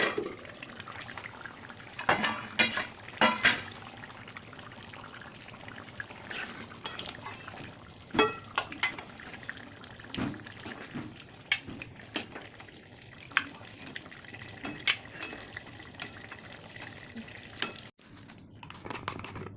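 Food cooking in a pot with a steady hiss, while a metal spoon clinks and knocks against the pot in short clusters as it is stirred.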